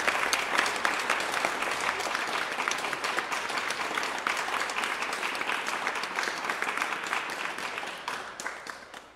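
Applause, many hands clapping at once, fading out over the last second.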